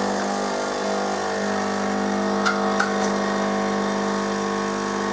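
Melitta Caffeo Solo bean-to-cup coffee machine's water pump running with a steady hum, pumping water up into the brewing unit for a coffee. Two light clicks about two and a half seconds in.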